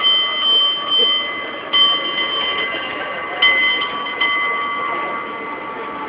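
San Francisco cable car bell struck a handful of times at a slow, uneven pace, each strike left ringing with a clear, lingering tone.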